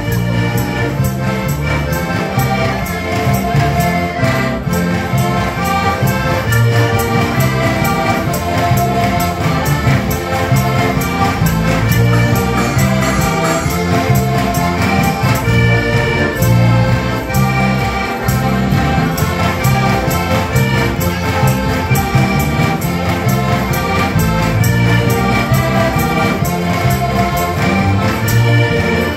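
Slovak folk band music led by heligónky, diatonic button accordions, with accordions, bass guitar and acoustic guitar keeping a steady dance beat.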